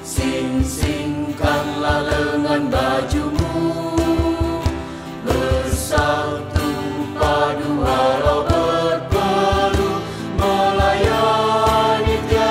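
Mixed choir singing a march in Indonesian in parts, with two acoustic guitars and a cajón keeping a steady beat.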